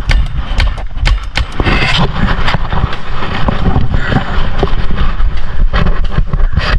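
Paintball fire: scattered sharp pops and cracks at irregular intervals, over heavy low rumbling and rubbing from the camera being knocked against clothing and gear.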